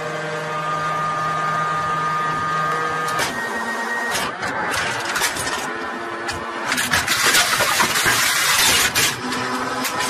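Tank autoloader (loading mechanism) cycling an armour-piercing round. An electric motor whines steadily for about three seconds, then stops. Metallic clanks and rattling follow, loudest about seven to nine seconds in as the round is brought up and rammed into the breech.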